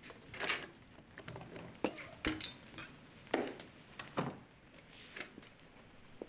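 Glasses and bar utensils being handled and set down behind a bar: a string of knocks and clinks, with one glass ringing briefly about two and a half seconds in.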